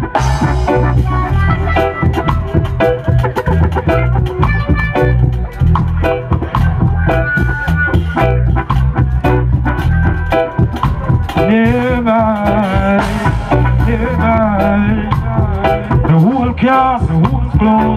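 Live reggae band playing an instrumental passage: a heavy bass line, drum kit and electric guitar. A wavering melody line rides over the band from about twelve seconds in.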